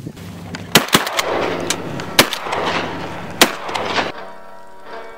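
Several shotgun shots, loud and irregularly spaced, with the strongest four spread over about three seconds. Music starts near the end.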